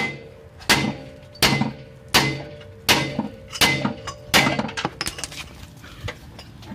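Hammer blows on the front suspension's metal, knocking out a ball joint the owner has found to be worn. About seven hard strikes land at a steady pace, roughly one every three-quarters of a second, each ringing briefly, followed by a few lighter taps near the end.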